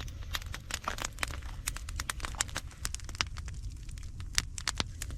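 Wood fire crackling with irregular sharp pops over a low steady rumble.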